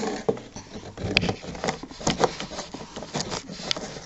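Irregular rustling and small crackling clicks of shredded-paper packing and a clear plastic cup being handled, as a hand digs through the paper.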